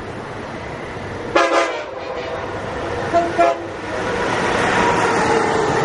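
Amtrak Acela Express high-speed trainset's horn sounding a multi-note chord: one longer blast about a second and a half in, then two short toots. After that comes the rising rush of the train passing at speed.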